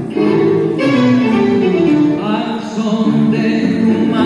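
Tango music with a singer, playing continuously.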